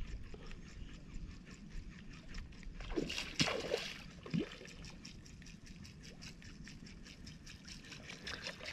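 Snapper splashing at a topwater lure on the water's surface: a few short splashes about three to four seconds in, over a faint steady background.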